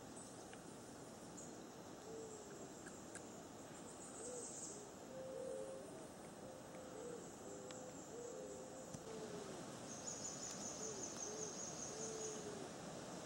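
Low, cooing bird calls in short repeated notes, some held and some sliding down, over a steady high insect buzz.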